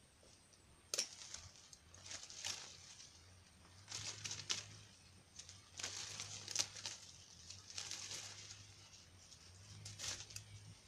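Leaves and branches rustling and crackling in repeated bursts as a leafy shrub is pruned by hand, with a few sharp snips of pruning shears.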